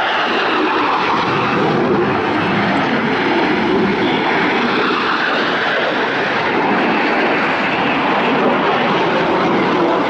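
Navy Blue Angels F/A-18 twin-engine fighter jet flying past and climbing, its engine noise loud and steady throughout.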